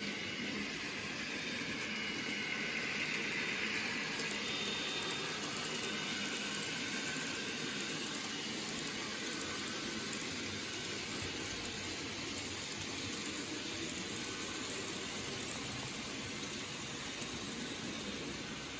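N gauge model train running on the layout: a steady hiss of the small motor and wheels on track, with a faint whine that is a little louder a few seconds in.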